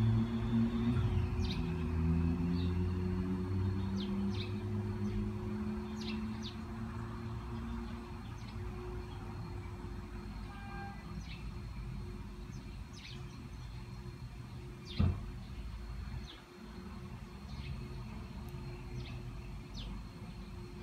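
Background ambience: scattered short bird chirps over a low rumble that eases after the first several seconds, with one sharp knock about fifteen seconds in.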